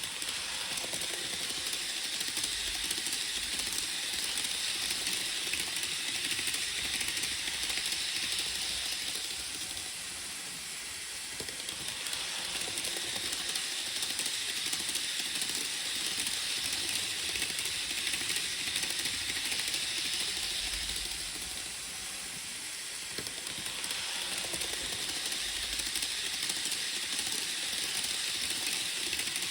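Model train running on its track: a continuous hissing rattle of wheels on rail that grows louder and softer in waves, dipping about every twelve seconds.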